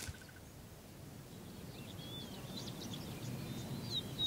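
Quiet natural ambience: a low, even background rumble with small birds chirping and giving short whistled calls, starting about halfway through and getting a little louder near the end.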